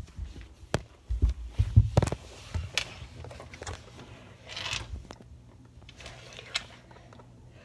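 Phone handling noise as the phone is swung down and covered: irregular low thumps and knocks, a few sharp clicks, and a stretch of rustling against fabric. The heaviest thumps come about one to two seconds in.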